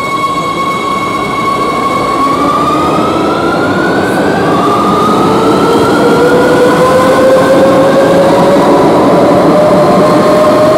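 Madrid Metro train's electric traction motors whining as it accelerates, several tones rising in pitch from about two seconds in while the sound grows louder, over the rumble of the train.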